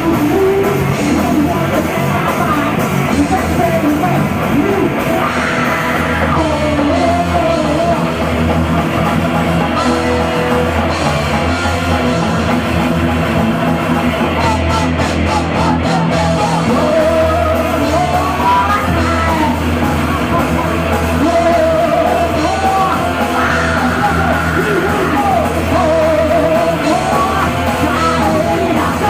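Live heavy metal band playing loud, with yelled vocals over the music.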